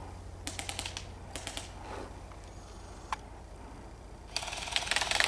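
Airsoft guns firing full-auto bursts of rapid clicks: two short bursts in the first second and a half, a single shot about three seconds in, and a longer, louder burst near the end.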